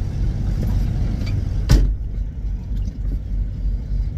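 Steady low rumble of an idling diesel engine, with a single sharp knock about a second and a half in.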